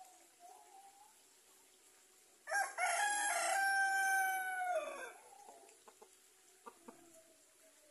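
Village rooster (ayam kampung) giving one crow of about two and a half seconds, starting a little over two seconds in, its pitch dropping away at the end.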